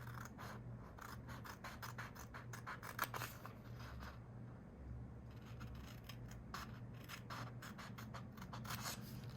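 Small sharp scissors snipping through paper, cutting out a paper stamp sticker: a run of quick, irregular snips with a louder one about three seconds in.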